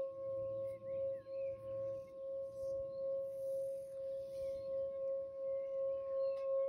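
Small handheld singing bowl ringing with one steady, sustained tone whose loudness swells and dips gently about twice a second. The sound keeps going evenly with no new strike, as when the bowl's rim is rubbed with a mallet.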